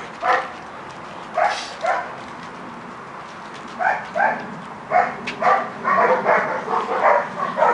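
A dog barking repeatedly in short, sharp barks: a few spaced barks at first, then a quicker run of them in the second half.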